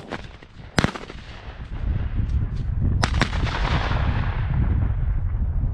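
Shotgun shots at doves: one sharp report about a second in, then two in quick succession about three seconds in. A low rumbling noise builds up from about two seconds in.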